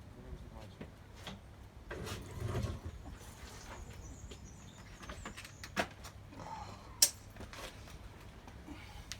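Scattered clicks and knocks of things being handled, with a louder rustle about two seconds in and a sharp click about seven seconds in; no engine running.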